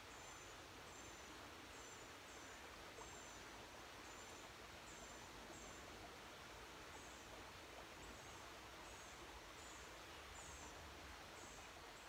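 Faint outdoor ambience: the steady hush of a creek, with a bird's short, high, thin chirps repeated about once a second.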